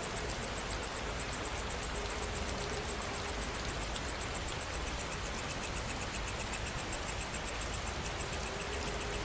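Steady rain falling, with insects chirping in a fast, even pulse throughout. A second, lower-pitched pulsing insect call joins about six seconds in.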